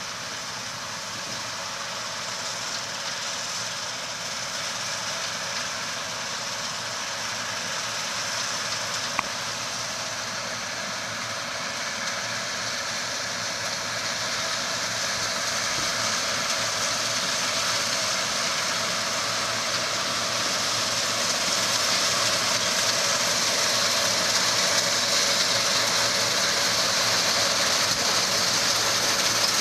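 Combine harvester running while cutting standing grain: a steady mechanical drone with a strong hiss that grows louder as the machine comes closer. A single brief click about nine seconds in.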